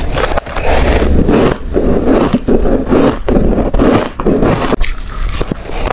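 Freezer frost crunching as it is chewed, loud and close, in repeated crunches a little more than one a second.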